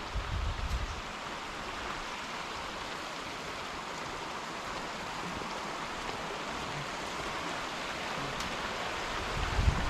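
Steady rushing of a small forest stream, with brief wind buffeting on the microphone in the first second and again at the very end.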